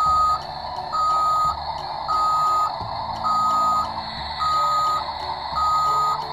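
Battery-powered toy construction vehicle's electronic sound effect: a reversing-alarm beep about once a second, six times, over a steady engine-like rumble.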